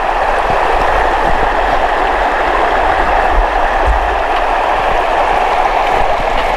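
Mountain creek running over rocks: a steady, loud rush of water, with a low rumble underneath.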